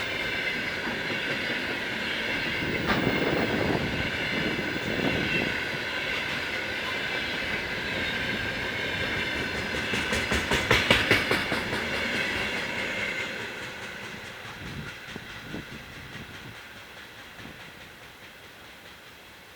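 Container flat wagons of a freight train rolling past at about 50 km/h, wheels clacking over rail joints over a steady ringing whine. There is a burst of rapid clatter about ten seconds in, then the sound fades away as the last wagons pass.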